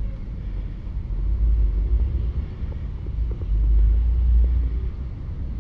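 Low rumble with no beeps or voice, swelling louder about a second in and again over the second half.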